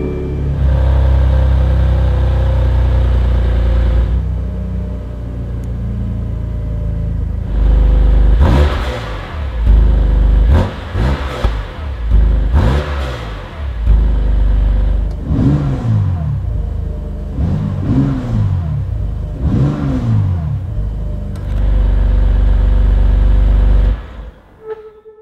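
BMW M2 CS 3.0-litre turbocharged straight-six idling, then revved: several quick sharp blips, then three slower revs that climb and fall back. It settles to a steady idle near the end.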